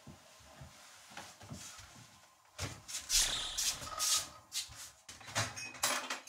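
Bedding rustling and bare footsteps on a wooden floor as someone gets out of bed and walks across the room, a string of soft rustles and knocks starting about two and a half seconds in.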